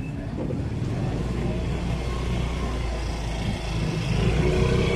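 A motor vehicle's engine running close by in street traffic, a steady low hum that grows louder about four seconds in.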